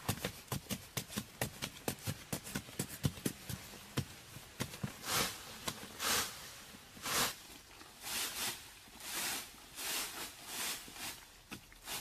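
Metal blades chopping into hard, dry soil in quick, irregular sharp strikes. From about halfway, slower scraping sweeps of loose, crumbly dirt follow, about once a second.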